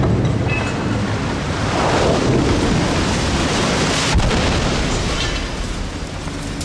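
Loud rumbling crash of a toppled concrete bridge pier coming down and breaking apart, with a sharp crack about four seconds in.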